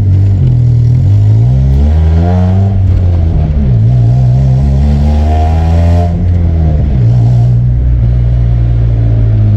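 A 1997 Honda Civic's swapped-in four-cylinder engine revving up and dropping back twice, then running at a steady speed in the last few seconds.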